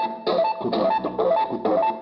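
Brazilian dance song playing loud through a van's sound system: an instrumental passage between sung lines, with a steady quick beat and a short plucked riff repeating over it.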